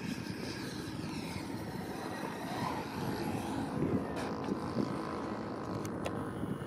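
Radio-controlled model aircraft engine passing by, its pitch sliding down, over a steady rumbling noise.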